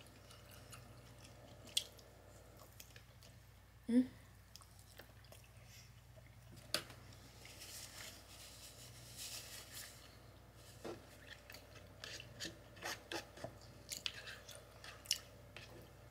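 Quiet chewing of soft food (pierogies and sauerkraut) with scattered small mouth clicks. There is a short hummed 'mm' about four seconds in, a soft rustle of a paper napkin around eight to ten seconds, and quicker clicks of eating near the end.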